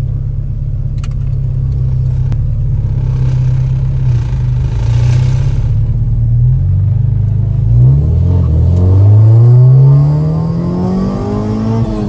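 Honda B16A DOHC VTEC four-cylinder breathing through a Spoon N1 exhaust, heard inside the car: it runs at steady revs, then after a gear change about halfway through the revs climb steadily under acceleration, loudest near the top of the pull.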